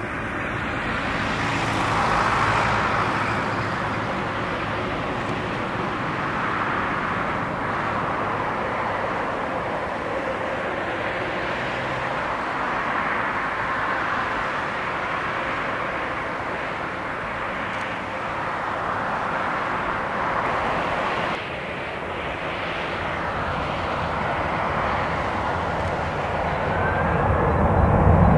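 Twin turbofan engines of a Boeing 767-300ER running as it taxis, a steady jet hiss and whine that rises and falls slightly and swells louder with more low rumble near the end.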